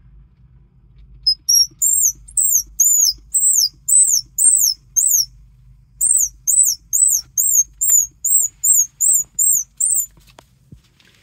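Homemade squirrel call blown by mouth, imitating a squirrel: a run of short, very high-pitched squeals, each rising then falling in pitch, about three a second. After a pause of about a second comes a second run of quicker, shorter squeals.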